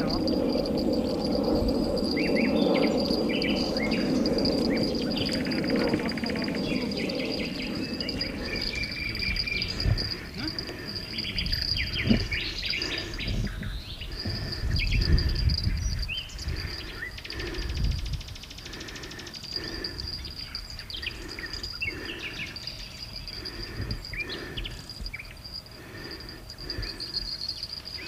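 Small birds chirping and calling over a steady, high-pitched insect drone. A low rumbling noise fills the first several seconds, and a few low thumps come near the middle.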